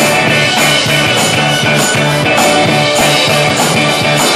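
Live rock band playing: electric guitar, bass guitar and drum kit, with a repeating bass line and a steady beat of cymbal and drum hits.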